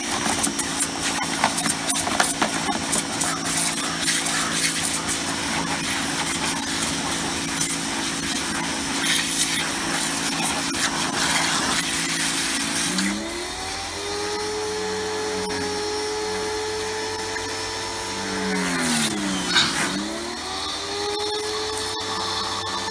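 Titan electric pressure washer running, its water jet hissing against a plastic sun lounger. About 13 seconds in the hiss eases and the motor's hum rises in pitch. Near the end the hum dips sharply and comes back up.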